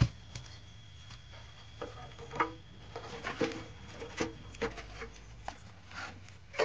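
Wood fire crackling in an open stove, with scattered clicks and light knocks as burning sticks are pushed further into the fire.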